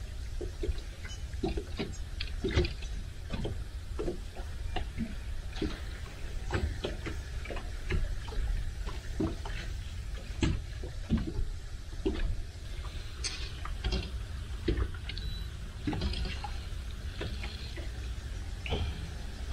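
Small waves slapping and splashing against a boat's hull at irregular intervals, with wind rumbling on the microphone.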